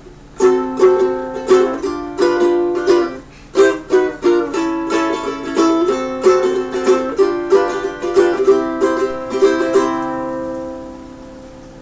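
Solo ukulele playing a chord intro, a quick run of strummed chords, with the last chord ringing out and fading away near the end.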